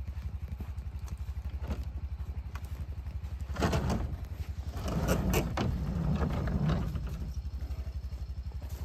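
A motor running with a steady, rapidly pulsing low rumble, with louder scraping or crunching noises in the middle.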